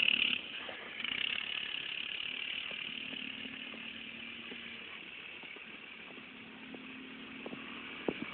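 Engine of a small vehicle running steadily as it tows a canoe across snow, heard at a distance through a phone microphone.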